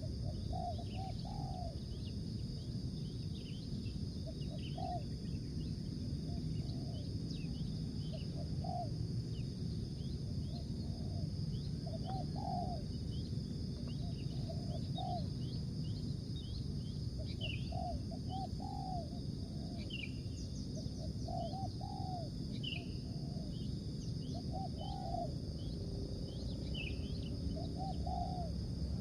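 Spotted doves cooing: short groups of low notes repeating every second or two. Brief high chirps from small birds and a steady high insect drone sound over a low background rumble.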